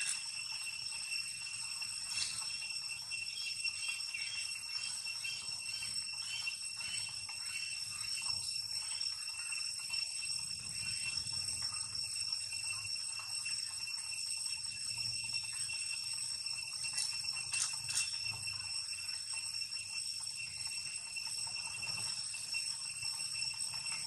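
A steady high-pitched whine with evenly spaced overtones, unbroken throughout, with a few faint clicks and a low rumble beneath.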